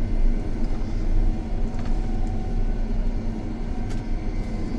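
A vehicle engine running steadily, heard from inside the cab as a low rumble.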